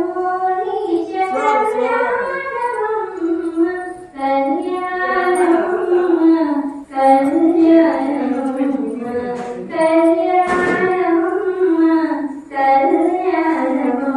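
Women devotees singing a Telugu devotional lullaby (pavalimpu song) for the deities, in long held melodic phrases with short breaks about four, seven and twelve and a half seconds in.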